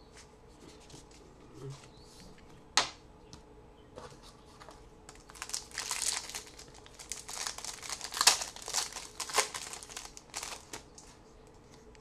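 Plastic wrapper of a trading-card pack crinkling as it is torn open. A single sharp click about three seconds in, then several seconds of crackling and rustling that ease off near the end.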